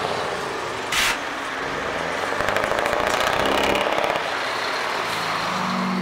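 Heavy truck tractor's diesel engine pulling away and accelerating, with a short burst of air hiss about a second in. Music fades in near the end.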